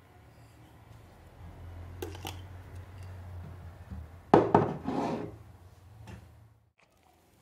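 Kitchen handling sounds as milk is poured in a thin stream onto diced potatoes and butter in a glass bowl. Light clicks come about two seconds in, then a cluster of louder knocks and scrapes of kitchenware a little after four seconds, over a faint low hum.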